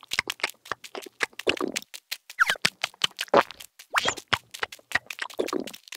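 Cartoon sound effect of many small ant feet tapping in quick, irregular clicks as the ants march past, with a few short vocal noises mixed in.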